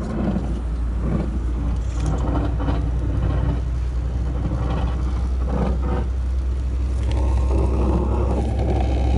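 Hurricane wind buffeting a phone's microphone: a loud, steady deep rumble with gusting noise, over wind-driven rain and spray across flood water.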